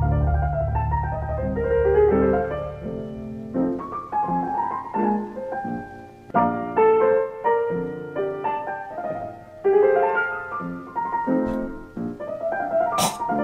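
Piano-led instrumental intro of a hip-hop beat: piano chords and melody notes, with a low bass note at the start and a couple of sharp drum hits coming in near the end.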